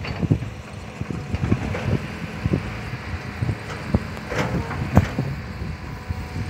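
Wind buffeting the microphone in gusts, with irregular soft knocks, over the distant running of a loaded dump truck driving away.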